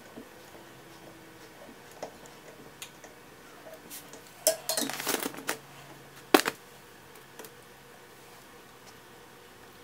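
Steel eye hook being screwed by hand into a pre-drilled wooden ceiling joist: small scattered clicks and scrapes, a short cluster of metal clinks about halfway through, then one sharp click.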